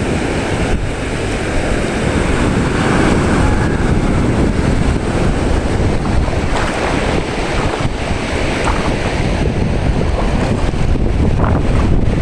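Sea surf washing onto a beach, with strong wind rumbling on the microphone.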